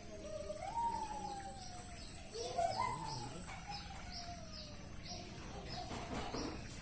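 Birds calling: long sliding calls that rise and then slowly fall, with a run of short chirps repeating about twice a second, over a steady high-pitched whine.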